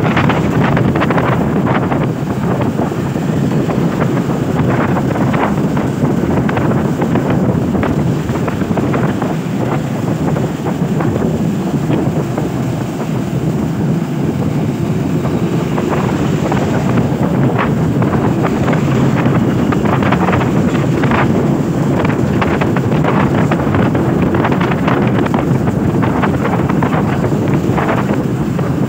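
Wind buffeting the microphone of a camera on a moving motorcycle in the rain: a loud, steady, low rush, broken by frequent short crackles.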